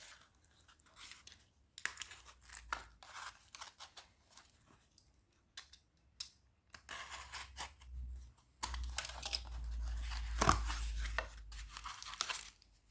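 Paper or plastic postal packaging being torn open and crinkled by hand, in scattered rustles and small clicks that grow busier and louder for the last few seconds, with low handling rumble.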